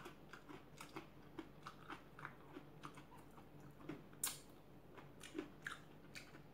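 A person chewing a mouthful of food: faint, irregular small crunches and clicks, a sharper one about four seconds in.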